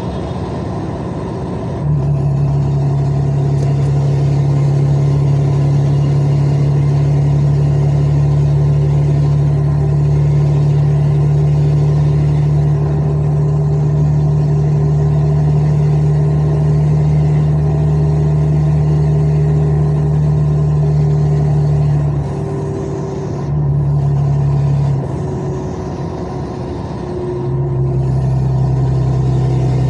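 Truck's diesel engine running with a steady low drone, heard from the cab; it drops away briefly twice near the end, then comes back.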